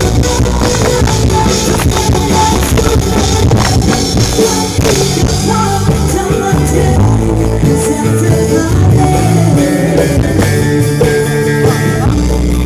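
Loud music with drums and singing played over a large sound system, heavy in the bass. The system's sound is broken ('suara sound rusak').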